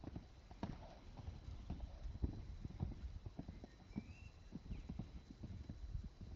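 A horse's hooves striking sand as it canters loose around an arena: a run of dull, low thuds, several a second.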